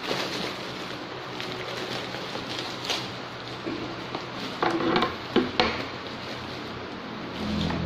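Plastic packaging and bubble wrap crinkling and rustling as a parcel is unwrapped by hand, with a few sharper crackles about three seconds in and again around five seconds in.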